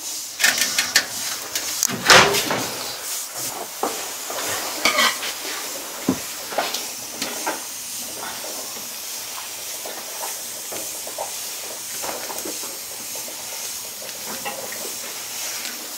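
Clinks and knocks of a pan and dishes at a wood-burning cast-iron cooking stove, mostly in the first half, over a steady sizzling hiss of food heating on and in the hot stove.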